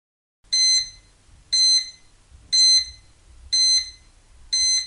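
Quiz countdown timer beeping: five short, high electronic beeps, one about every second.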